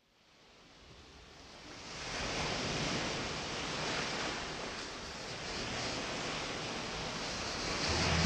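Sea waves washing on a shore, fading in from silence over the first two seconds and swelling gently. A low held music note comes in near the end.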